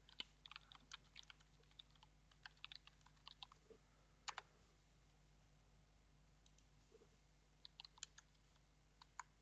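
Faint computer keyboard typing: quick runs of key clicks for the first four seconds or so, a pause of a few seconds, then a few more clicks near the end.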